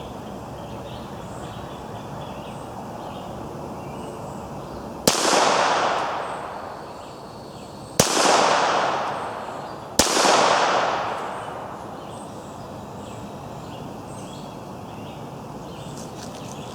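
Three shots from a Ruger MK III 22/45 .22 pistol, about three seconds and then two seconds apart. Each crack is followed by a long, fading echo.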